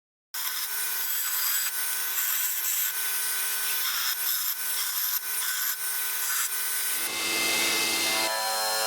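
A power tool running with a steady motor whine under a scraping, cutting noise. It starts suddenly just after the start, and the sound changes abruptly about seven seconds in and again a second later.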